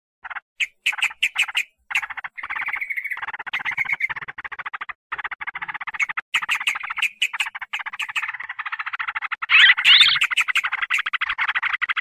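Yellow-vented bulbul (trucukan) lure call: agitated, fast chattering rattles, a few separate bursts at first, then a dense near-continuous run of rapid notes with brief breaks, and a louder warbling phrase about ten seconds in.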